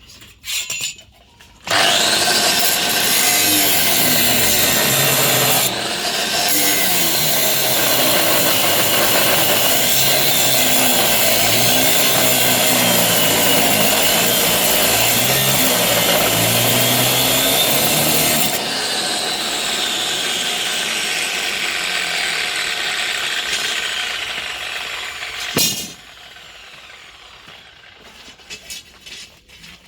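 Power tool with an abrasive disc grinding metal. A loud, steady grinding hiss carries a motor whine that wavers as the disc bears on the work. About two-thirds of the way through the grinding eases and the whine falls away as the disc spins down, stopping a few seconds before the end.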